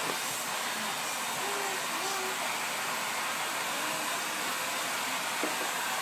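Corded stick vacuum cleaner running steadily, its nozzle being brushed over a cat's fur.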